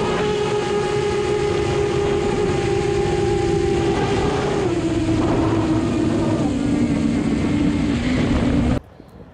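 Multirotor drone's propellers whining steadily over a rough rushing noise. The pitch steps down several times as the motors slow, and the sound cuts off abruptly near the end.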